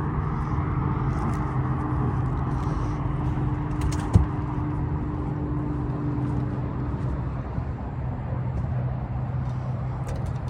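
A steady engine hum, most likely the fishing boat's outboard motor running. A single sharp knock comes about four seconds in.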